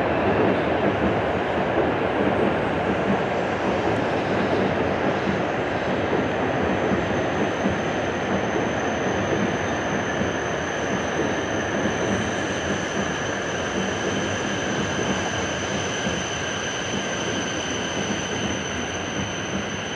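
W7 series Shinkansen train running slowly into the station: a steady rumbling noise that fades a little, joined after several seconds by a thin, high, steady whine.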